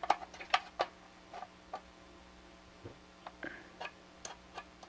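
Hard plastic housing parts of a vintage toy robot clicking and tapping against each other as they are handled and fitted together. There are a dozen or so short, sharp clicks at irregular intervals, the loudest in the first second.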